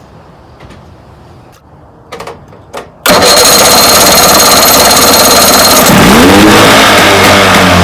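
1980 Chrysler 45 hp two-stroke outboard starting on the key about three seconds in, catching at once on the choke and running loudly at fast idle; its speed dips and picks up again about six seconds in.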